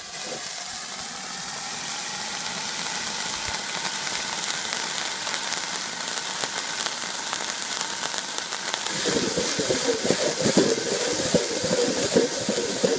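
Water boiling off a hot steel griddle under a stainless steel dome lid, a steady steaming hiss as fingerling potatoes are steamed. From about nine seconds in, a louder crackling sizzle joins the hiss.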